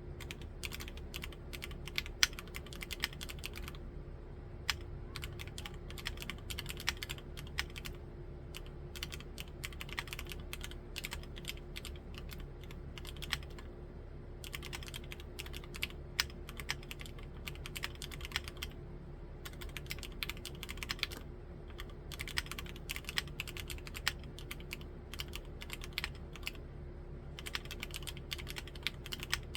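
Continuous typing on an Akko MOD005 full-aluminium mechanical keyboard with Gateron Milky Yellow Pro linear switches, giving a clacky keystroke sound. The keystrokes come in fast runs broken every few seconds by brief lighter pauses.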